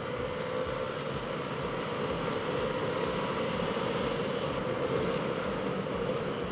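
Wind rushing over a helmet-mounted external microphone on a moving motorcycle, with the bike's engine running steadily underneath; it grows a little louder over the first few seconds as the bike picks up speed.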